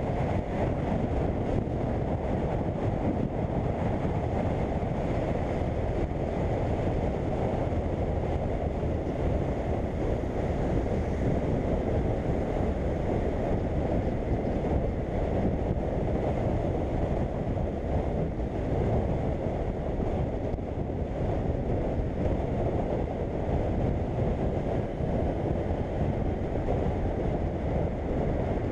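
Wind rushing over the microphone of a BMW F800GS motorcycle at riding speed: a steady, low, even rush with no breaks, which covers the engine and road noise.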